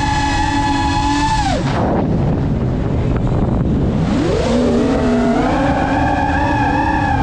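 Geprc Mark 5 FPV quadcopter's brushless motors whining at a steady pitch, then falling away as the throttle is cut for a dive about a second and a half in, leaving a rushing noise. About four seconds in the whine climbs steeply back and holds high as the throttle comes back up.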